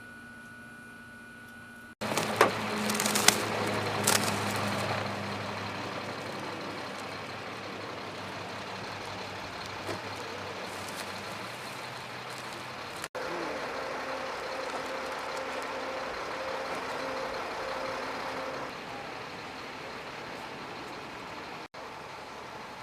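Heavy vehicle engines running steadily across several cut-together shots, with a few sharp knocks or clanks about two to four seconds in.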